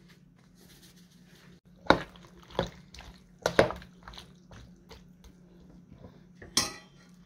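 Metal spoon stirring chunks of raw fish and vegetables in coconut cream in a plastic bowl: wet squishing with a few sharp clinks of the spoon against the bowl, then a short scrape near the end.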